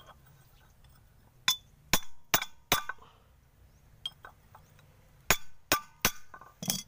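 Flat steel bar clinking against the steel bearing cover of a Hino truck gearbox as a new oil seal is worked into its bore. There are eight sharp metallic clinks in two groups of four, with a quiet gap of about two seconds between the groups.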